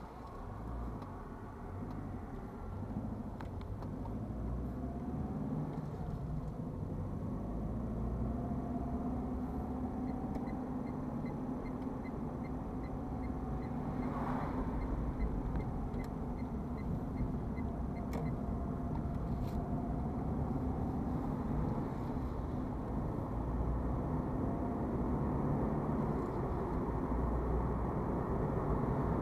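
Car engine and tyre noise heard from inside the cabin, growing louder as the car picks up speed. From about ten to eighteen seconds in, a regular ticking of the turn-signal indicator, a few clicks a second.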